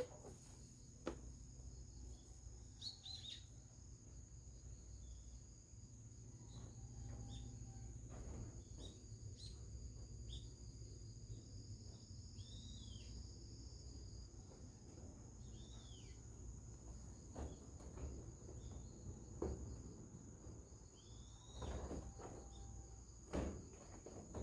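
Scattered short bird chirps, many sliding downward in pitch, over a steady high insect trill and a low rumble, with a few soft knocks.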